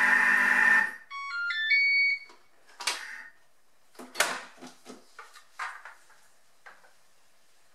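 Thermomix TM31 motor running at mixing speed 3, stopping about a second in as the timer runs out. A short rising sequence of beeps follows, the machine's end-of-program signal. Then come several clicks and knocks as the lid is unlocked and lifted off the stainless steel mixing bowl.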